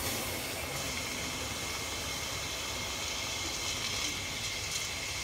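A hot lump of grill charcoal held in tongs in a bowl of water, hissing steadily as the water quenches it.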